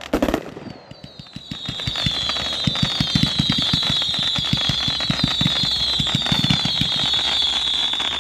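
Fireworks fired from the ground in a rapid volley: a quick string of launch pops under a continuous, high, shrill whistling from many shots at once. The whistling drifts slightly lower in pitch. It builds about a second in and holds to the end.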